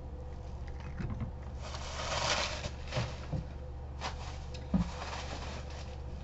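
Rustling and a handful of light knocks and taps as someone rummages among items, over a steady low hum.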